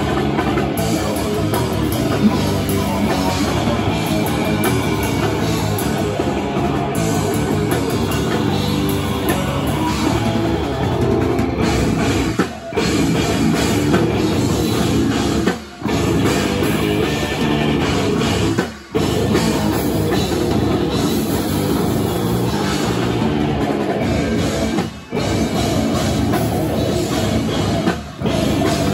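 Heavy metal band playing live at full volume: electric guitars, bass guitar and drum kit in a dense, steady wall of sound. The music cuts out in brief, sudden breaks five times in the second half before slamming back in.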